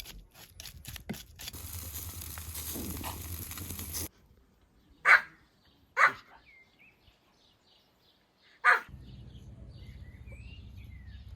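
A dog barks three times, once about five seconds in, again a second later and again near nine seconds, with small birds chirping faintly in the background. Before the barks there are a few clicks and a steady hiss that cuts off abruptly.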